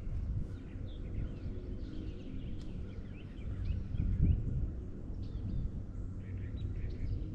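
Birds chirping in short repeated calls, over a steady low hum.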